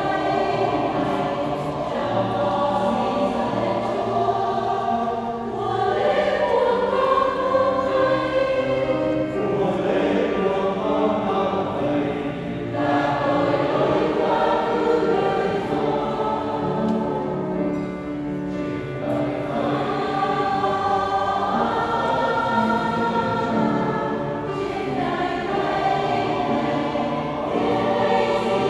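Mixed Vietnamese church choir of women and men singing a hymn in parts, in long held phrases with short breaks between them.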